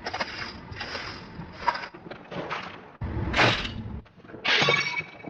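Objects crunching and cracking as a car tyre rolls over and crushes them, in a run of short crackling bursts that start and stop abruptly. The loudest crunches come a little past the middle and near the end.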